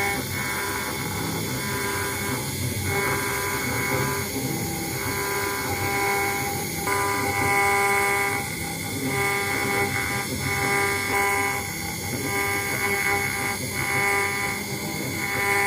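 CNC router engraving a brass plate: the spindle gives a steady whine while the axis stepper motors add tones that switch on and off every second or so as the cutter moves back and forth along its path.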